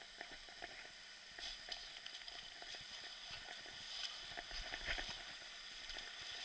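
Faint trickling and splashing of water with many scattered small clicks and knocks, a little louder about four to five seconds in.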